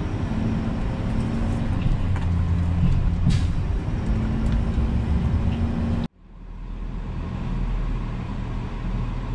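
Truck engine and road noise heard from inside the cab while driving, a steady low rumble with a few humming tones. It cuts off sharply about six seconds in and gives way to a steadier, deeper engine rumble.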